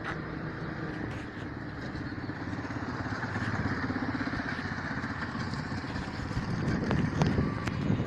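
A motor vehicle engine running close by, growing louder toward the end, over steady traffic noise.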